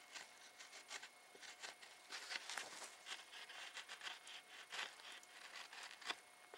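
Belt knife shaving the edge of a soft cedar stretcher board: a faint, irregular run of short scraping strokes.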